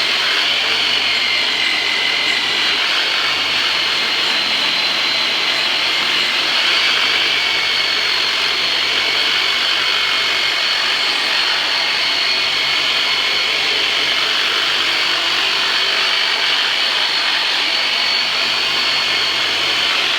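Handheld electric high-speed vibration massager running steadily over strained muscles: a constant motor buzz with a few high, steady whining tones.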